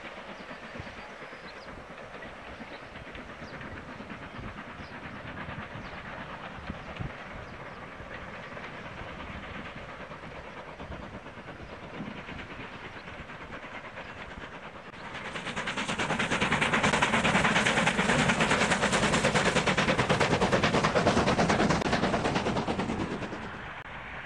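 Steam locomotive hauling a passenger train and working hard, heard at a distance as a steady rushing exhaust. About 15 seconds in, a much louder rush of rapid beats and hiss takes over for some eight seconds, then drops away.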